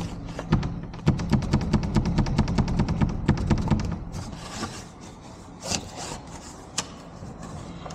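Rapid rubbing and scraping of a tool worked against a jammed door latch. It eases about halfway through to a few separate clicks.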